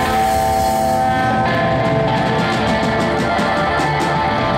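Live electric blues band playing: electric guitar, bass guitar and drum kit, with long held notes over the beat. Blues harmonica is played into a hand-held microphone.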